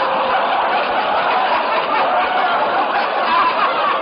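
Studio audience laughing steadily after a gag line, on an old broadcast recording that is dull and cut off in the highs.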